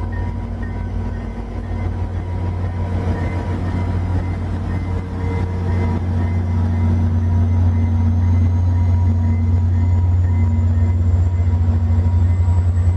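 HO scale model train running past close by: a steady low motor hum with wheels rolling on the track, growing louder as the train nears. A faint high whine rises slowly from about halfway through.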